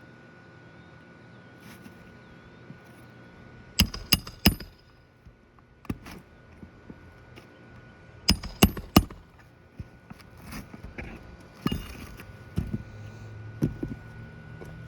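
Hammer driving roofing nails into an asphalt shingle: two quick runs of about four sharp strikes each, about four seconds apart, then a few lighter taps.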